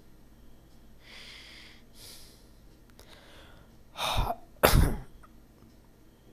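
A sneeze close to the microphone about four seconds in: a short first burst, then a louder explosive one half a second later.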